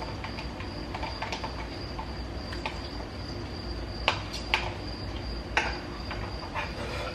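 Pot of soup boiling on the stove: scattered pops and clicks over a steady high whine and a low hum.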